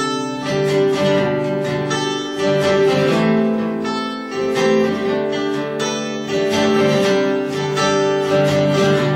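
Live acoustic guitar music with chords strummed steadily.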